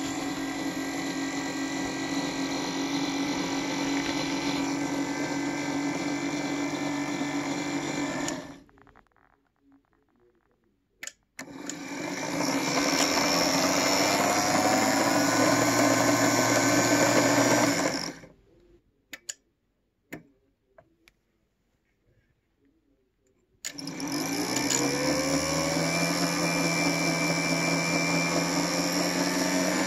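The electric motor and gear drive of a Scale Model Railways O scale Wabash K5 steam locomotive chassis running with its drive wheels and rods turning: a steady whir. It stops twice, with a few faint clicks in the pauses, and each time it restarts and winds up in pitch.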